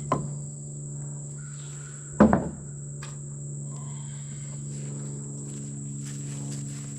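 Two hammer blows on porch lumber, a light one at the start and a harder one about two seconds in. A steady high insect drone, like crickets, runs underneath.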